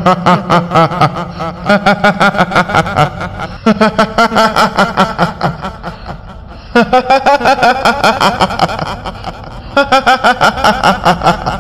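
Rapid 'hihihi' laughter of a kuntilanak, the female ghost of Indonesian folklore, as a voice effect. It comes in four quick runs of about seven pulses a second, with short breaks between them.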